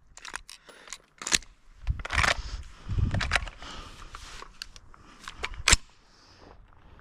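Scattered sharp clicks and short rustles of handling noise, with one louder click near the end.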